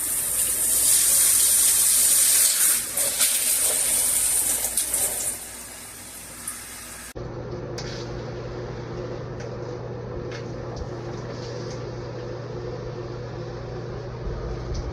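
Water spraying hard from a handheld shower head, a loud hiss that dies away about five seconds in. After a sudden cut, a steady low hum with a few faint ticks.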